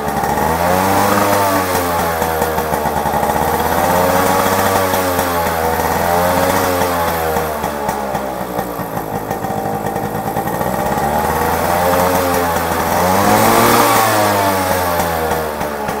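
Yamaha RX100's two-stroke single-cylinder engine running, the revs swelling and easing several times under the throttle. It has the genuine RX note, running right again after a service.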